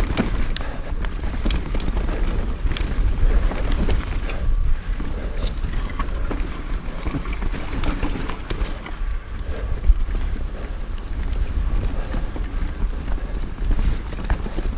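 Mountain bike riding down a dirt forest singletrack: tyres rolling over the trail, wind buffeting the camera microphone, and scattered small knocks and rattles from the bike. The rear hub is a Kappstein roller-clutch silent freewheel hub, so there is no freewheel ratchet clicking, only the riding noise.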